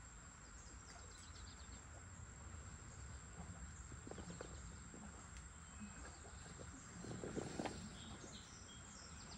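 Faint riverside ambience: a steady low rumble, a thin steady high insect drone, and scattered short bird chirps. About seven seconds in there is a brief burst of rustling and handling noise as the angler crouches in the grass.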